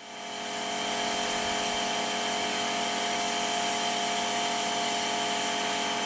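Steady mechanical hum at a constant pitch, fading in over the first second and then holding unchanged.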